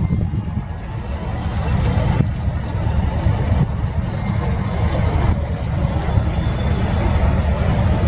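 Boat engine running steadily with a low drone, under a constant hiss of wind and water.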